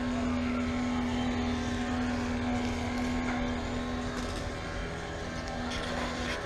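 An engine runs steadily at one even pitch, with a second, lower tone joining near the end.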